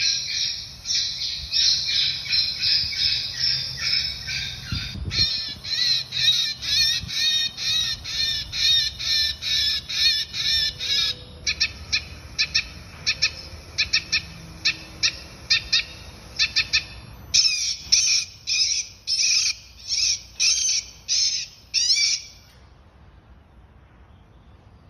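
Electronic rodent-repeller squawk box playing rapid, evenly repeated squawking chirps, switching to a different pattern every several seconds, with a thin steady high tone above them. It stops shortly before the end.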